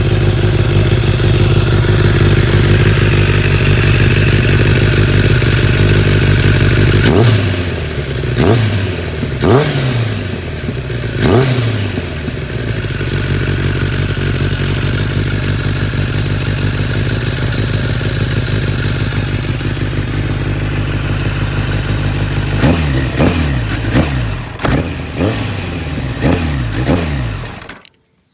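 Kawasaki ZZR1100's inline-four engine running through a Tech Surf titanium slip-on silencer. It runs steadily at first, then is blipped four times, each rev rising and falling back, settles again, and takes a quick series of short revs near the end before the sound stops abruptly.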